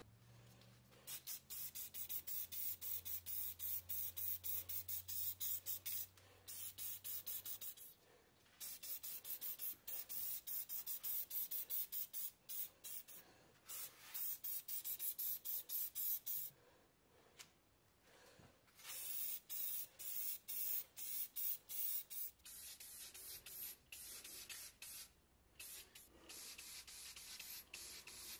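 Spray paint hissing out in rapid short bursts, several a second, with brief pauses between runs, as primer and red paint coats go onto small sheet-metal toy parts. A faint low hum runs under the first several seconds.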